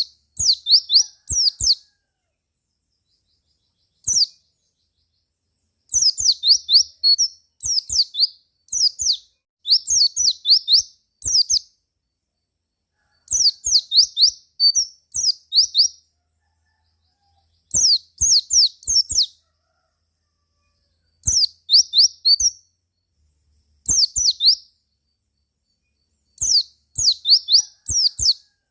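White-eye (pleci) singing in short bursts of rapid, high, downward-sweeping chirps, phrase after phrase, with brief pauses between them.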